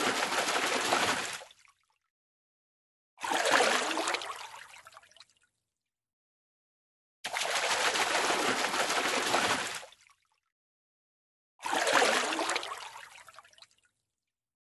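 Water splashing, alternating with silent gaps: a steady rush of splashing water that stops about a second and a half in, a sudden splash about three seconds in that dies away over two seconds, then another rush of about three seconds and another sudden, fading splash near the end.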